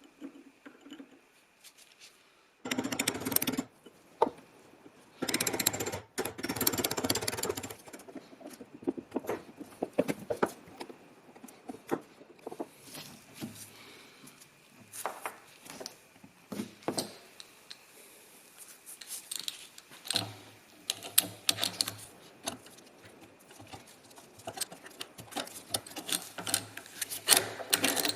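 Hand work on a rusty metal hand drill: two longer bursts of scraping or brushing, then many sharp clicks, taps and short rubbing strokes of metal parts being handled.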